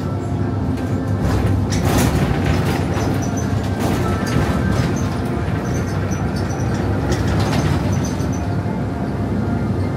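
Bus interior while the bus is driving: a steady low engine and road hum, with scattered knocks and rattles, the biggest about two seconds in.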